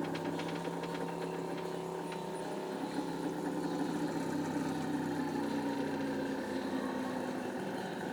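Self-built MaXYposi CNC machine running, its motors giving a steady mechanical whine of several tones. The pitch shifts about six and a half seconds in, with faint rapid ticking in the first couple of seconds.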